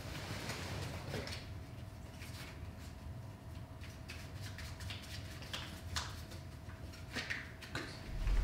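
Quiet room tone with a faint steady hum and a few scattered small clicks and taps of handling. Near the end a loud, deep rumble swells up suddenly.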